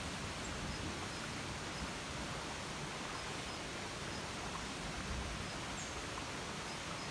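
Steady, even outdoor hiss from rain or rushing water, with a faint high tick repeating about twice a second.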